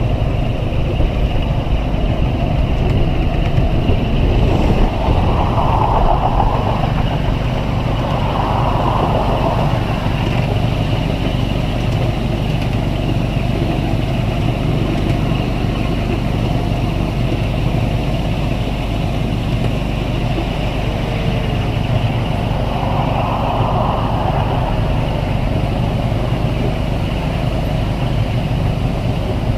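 Miniature railway train running steadily along its track, heard from one of the riding cars: a continuous low rumble of the locomotive and the wheels on the rails.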